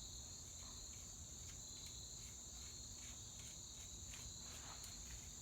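Faint steady high trilling of crickets, with a scatter of faint light clicks.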